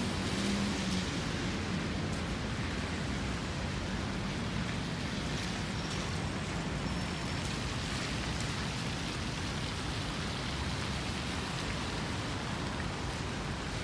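Steady hiss of rain falling, with a few faint ticks.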